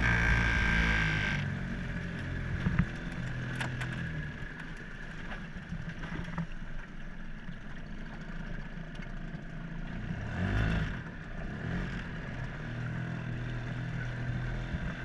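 Small outboard motor on a dinghy running steadily under way.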